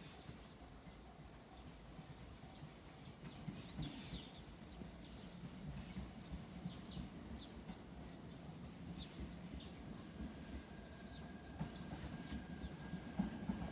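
Small birds chirping again and again over the faint low rumble of a distant electric train, which grows slowly louder. A thin steady whine joins about ten seconds in.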